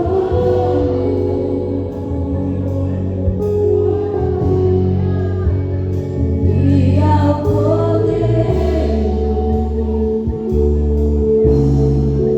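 Gospel worship song: singing over instruments, with steady bass notes that change every second or two under held chords.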